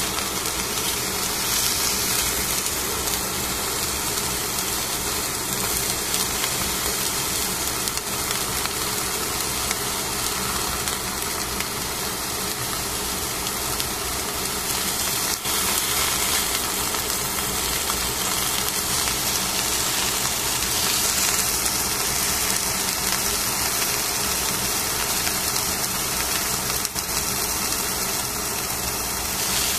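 Fish steaks sizzling on aluminium foil in a pan: a steady hiss over a constant mechanical hum, with a few light clicks of the utensils.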